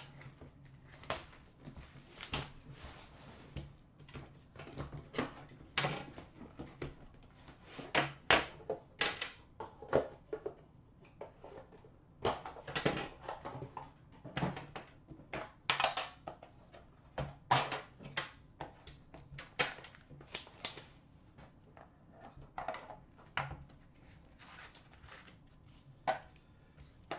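Plastic shrink wrap being cut and pulled off a sealed metal trading-card tin, crinkling in irregular crackles, with clicks and taps as the tin is handled and opened.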